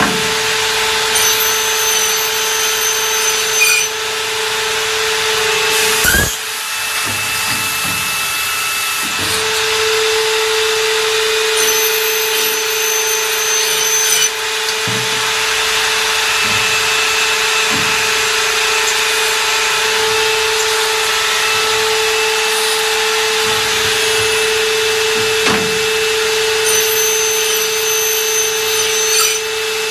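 Automatic CNC aluminium profile machining line running: a steady machine whine over a hiss, with a high tone that comes and goes a few times and a couple of sharp knocks.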